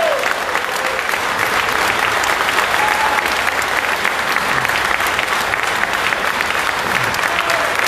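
Audience applauding steadily: many hands clapping together, a dense even patter at a fairly loud level.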